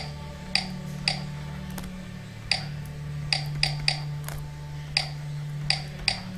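Pen stylus clicking against a drawing tablet as letters are handwritten: about ten short, hard plastic clicks at uneven intervals over a steady low hum.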